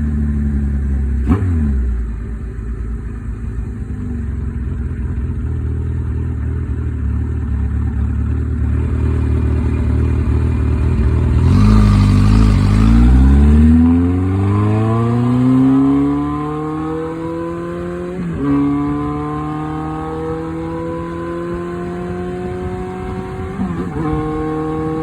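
Car engine breathing through a Tokyo Tekkan MRS EXR aftermarket exhaust silencer. It runs low and steady at first, surges loudly about halfway through, then climbs steadily in pitch under acceleration. Gear changes break the rise twice near the end.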